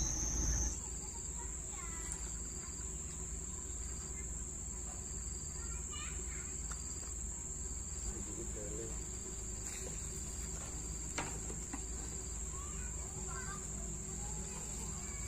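Insects droning steadily in a high, unbroken pitch over a low outdoor rumble, with a few faint short calls and a single click about eleven seconds in.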